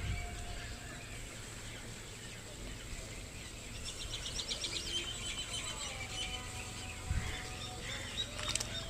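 Birds calling, with a fast, high chattering trill about four seconds in, and a dull low bump near seven seconds.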